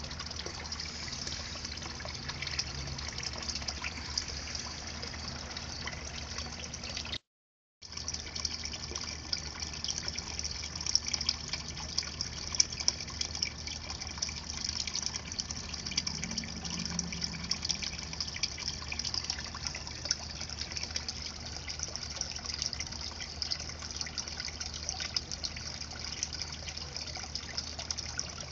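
Water from a fountain spout pouring steadily into a small fish pond, a continuous splashing trickle. The sound cuts out for about half a second some seven seconds in.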